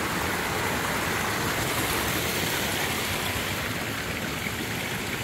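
Small cascade of a mountain stream, water rushing steadily between boulders, easing off slightly near the end.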